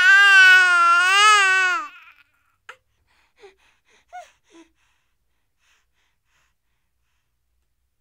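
Infant crying: one long, wavering wail that breaks off about two seconds in, followed by a few short, faint whimpers.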